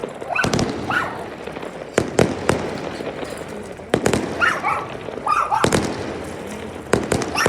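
Fireworks exploding: a string of sharp, loud bangs at uneven intervals, roughly one every second or so, with short high-pitched calls between some of them.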